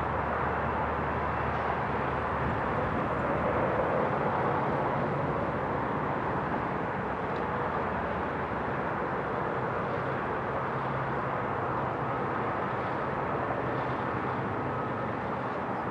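Freight train's tank cars and hoppers rolling by on the rails: a steady rumble and rush of wheels on track, with a faint low hum that fades out in the first couple of seconds.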